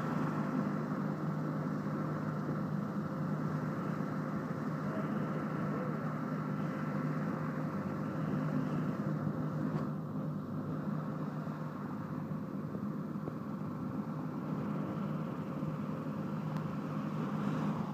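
Police helicopter in flight, a steady engine drone with a held hum, easing slightly about halfway through.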